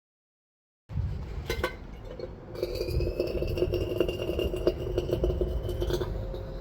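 The blower of a home-made aluminium melting furnace running with a low rumble and a steady hum, with a few metallic clinks from the stainless crucible and tools. The sound starts abruptly about a second in, after a silent gap.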